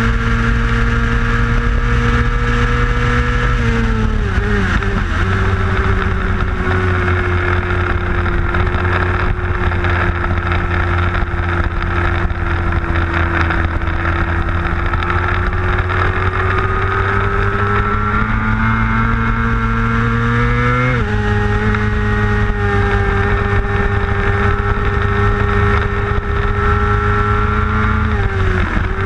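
Middleweight superbike engine heard onboard at racing speed with wind rush. It runs flat out at first, drops with a few quick downshifts about four seconds in under braking, then pulls through a long corner with the revs slowly climbing. A sharp upshift comes about 21 seconds in, and more downshifts follow near the end.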